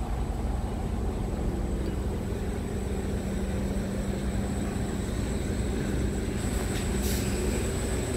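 Scania R450 tractor unit's diesel engine idling steadily, a low even hum, with some brief handling noise near the end.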